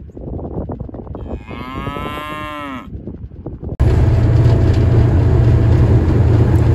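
A Hereford cow moos once, a long call about a second and a half in. Near the four-second mark the sound cuts abruptly to the loud, steady rumble of riding in a side-by-side utility vehicle.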